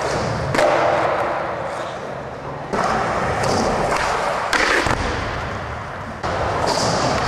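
Skateboard wheels rolling, broken by several sharp clacks and thuds of board pops and landings. Each impact is followed by a rolling sound that fades away.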